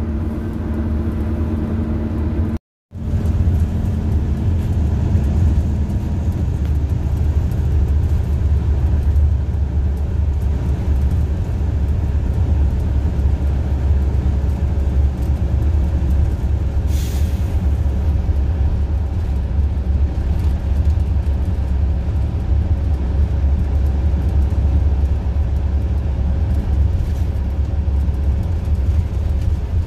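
Detroit Diesel Series 50 EGR inline four-cylinder engine of a 2001 Orion V bus running steadily under way, heard from inside the cabin as a steady low rumble with road noise. The sound cuts out briefly about three seconds in, and a short air hiss comes a little past the middle.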